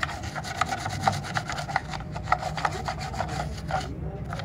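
Toothbrush bristles scrubbing a wet Dell motherboard coated in detergent powder, in quick repeated back-and-forth strokes, to wash the dirt off the board. The scrubbing stops near the end.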